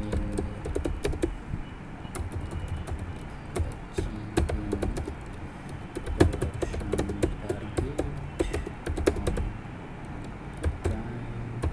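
Typing on a computer keyboard: a quick, irregular run of key clicks with short pauses between words.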